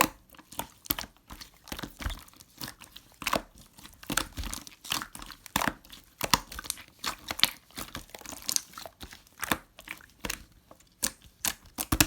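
Slime being squeezed and kneaded by hand, giving a stream of irregular crackling pops and crunches.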